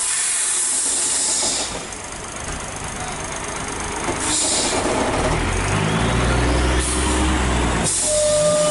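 Heavy diesel truck's air brakes hissing in several short bursts. About five seconds in, its engine comes in with a deep steady rumble under a rising whine.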